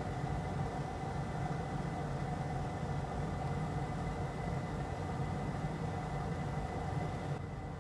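Steady machine hum: a low drone with a few fixed whining tones over a light hiss. The higher part of the hum drops away abruptly just before the end.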